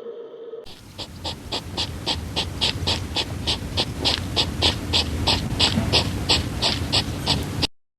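A dog panting rapidly and evenly, about three and a half breaths a second, cutting off abruptly near the end.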